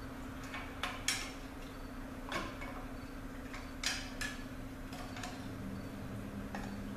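A handful of sharp metal clicks and clinks from parts being worked by hand inside an opened Ford 4R100 transmission case, over a steady low hum.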